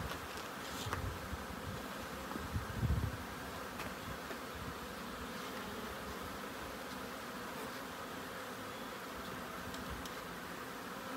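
A swarm of honey bees buzzing steadily, the hum of many bees at once. A few low bumps stand out in the first three seconds.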